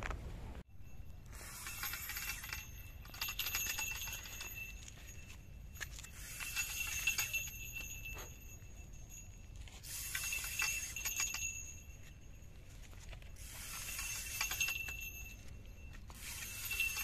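A small bell jingling on a fishing rod, ringing and rattling in short bouts about every three to four seconds as the line is tugged.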